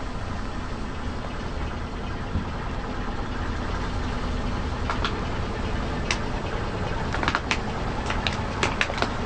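Car engine running low and steady, with a scatter of sharp cracks and snaps in the second half as something crunchy breaks under a tyre.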